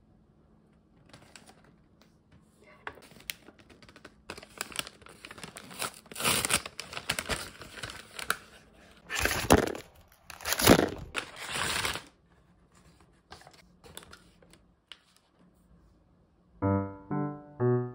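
Paper bag rustling and crackling as it is opened and the wrapped sweets inside are handled, in irregular spells with two loud bursts about halfway through. Piano music begins near the end.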